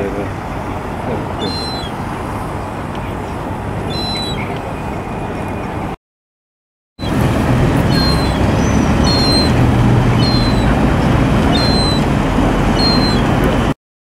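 Juvenile gull giving thin, high begging whistles: short, slightly falling notes repeated about once a second, over a steady low background rumble. The sound breaks off for about a second midway.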